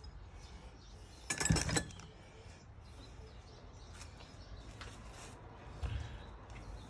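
1965 Volvo 122S wiper motor running on the bench off a battery, with a brief squeaky clatter about a second and a half in and a lighter knock near the end.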